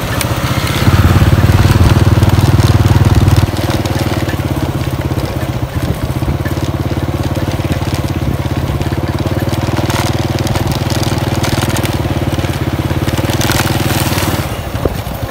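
Small motorbike engine running steadily at riding speed, with rough road noise above it. The engine is louder for a couple of seconds about a second in.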